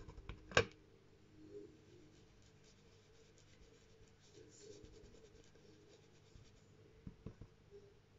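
Faint rubbing and scratching on paper as green ink is worked onto a stencilled background, with a sharp tap about half a second in and a few light knocks near the end.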